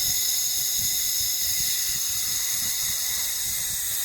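Handheld laser welding machine running: a steady high hiss with several thin, high whining tones over it.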